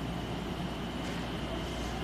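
JR West 227 series electric train starting to move away from a station at walking pace: a steady low hum from its traction equipment, with a faint steady high whine above it.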